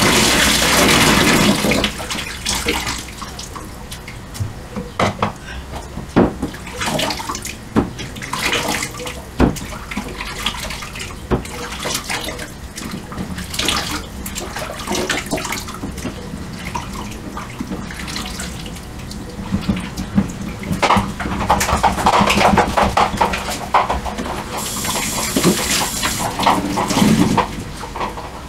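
Dishes being washed by hand in a stainless steel sink: the tap runs briefly at the start, then cups and dishes clink and knock in the water, and water runs and splashes again for several seconds near the end.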